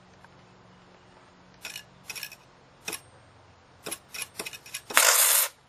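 Stick-welding arc run off three 12 V lead-acid batteries in series (36 V): the electrode is scratched against sheet metal, giving short crackling pops that come more and more often. Near the end the arc catches and holds with a loud, steady crackle for about half a second.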